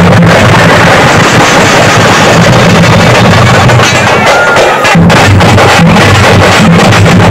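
Street drum troupe of double-headed barrel drums beaten with sticks in a fast, very loud rhythm. The sound is so loud the recording is heavily overdriven, with a brief dip about five seconds in.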